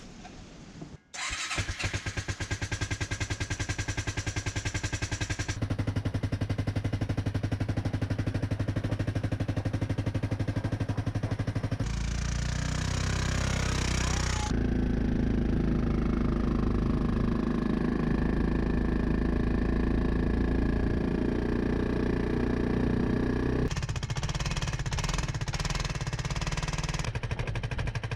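Arctic Cat ATV engine running, a rapid, even stream of firing pulses whose note shifts several times.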